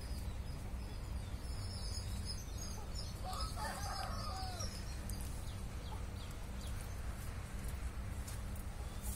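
A rooster crows once, starting about three seconds in and lasting over a second, over a steady low background hum.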